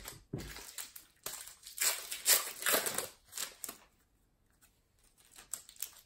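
A couple of soft knocks, then the plastic wrapper of a 2018-19 Panini NBA Hoops trading-card pack torn open with loud crinkling for about two and a half seconds, followed by faint clicks of the cards being handled.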